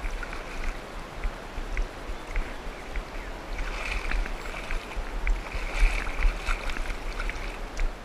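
Shallow creek water running and splashing around a wading angler, with wind rumbling on the microphone and small knocks of gear handling.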